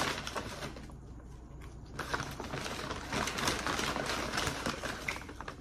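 Brown paper McDonald's takeout bag rustling and crinkling as hands dig through it. It goes quieter about a second in, then turns busier with many small crackles from about two seconds in.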